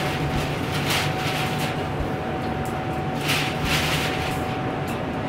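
Steady restaurant background hum with a constant thin whine, over which a man with his mouth packed full of food makes a few short, breathy noises about a second in and again around three to four seconds in.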